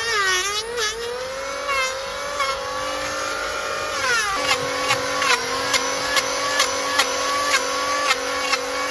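Handheld electric grinder working a hoof, its motor running with a steady whine. The pitch sags as it bites, with a sharp drop about four seconds in. After that come regular ticks, about two a second, as it cuts.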